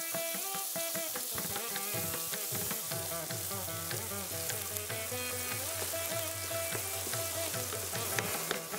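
Onion paste sizzling in hot oil in a wok while a wooden spatula stirs it, with Indian instrumental background music over it.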